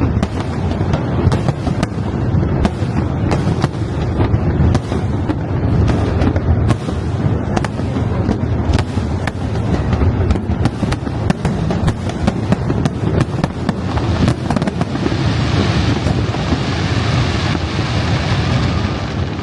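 Large fireworks display: a dense barrage of shells bursting, many sharp bangs a second over a continuous low rumble, with a rising high hiss of crackling in the last few seconds.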